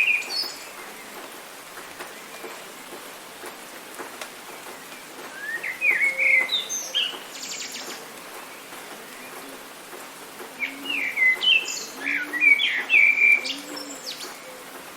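Steady hiss of rain with a songbird singing two bursts of quick chirped and whistled phrases, one about five seconds in and one about eleven seconds in. The first burst ends in a fast buzzy trill.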